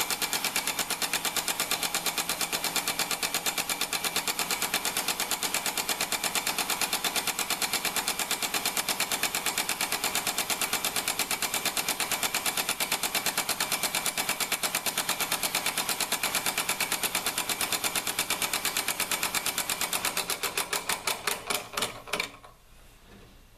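Shop-built model steam engine running fast on compressed air, its cam-worked cross valve and rocker arm making a rapid, even clatter like a sewing machine. Near the end the beat slows and then stops.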